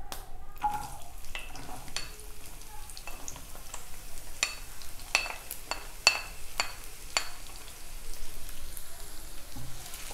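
Chopped shallots sizzling in hot coconut oil in a nonstick kadai, with a dozen or so sharp clicks of a wooden spatula knocking against the plate and pan as they are scraped in and stirred.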